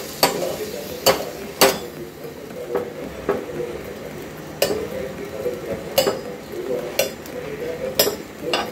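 Metal spatula clinking against the gas burner and its grate as a rice-flour bhakri is turned over the open flame: about ten sharp, irregular clinks.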